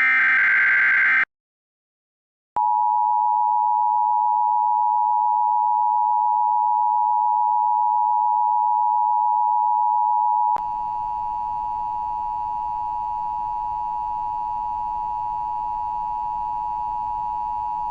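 Emergency Alert System tones. The end of a SAME header data burst, a harsh buzzing chirp, cuts off about a second in. After a short gap comes the two-tone attention signal, a steady dual tone just under 1 kHz. About ten seconds in, the attention signal drops in level and turns hissy with added overtones.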